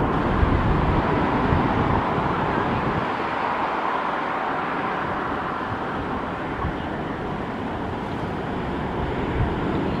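Wind rumbling on the microphone over a steady rushing background noise; the wind rumble eases after about three seconds.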